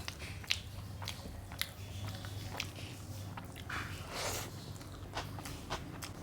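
Close-miked chewing and mouth sounds of someone eating a meal of rice, dal, mashed potato and omelette: a run of short wet clicks and smacks, with a short hiss about four seconds in, over a steady low hum.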